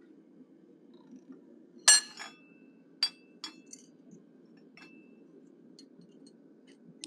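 Steel tongs and a forged steel bear-head workpiece clinking against a steel bolster plate on the anvil as the piece is lifted out and laid down. One sharp, ringing clink comes about two seconds in, followed by several lighter clinks. A low, steady hum runs underneath.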